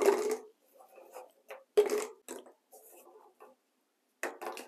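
Small crisp mini cookies dropped by hand into a clear jar, clattering in short bursts as they land against the jar and each other: a few separate clatters, the louder ones near the start, about two seconds in and near the end.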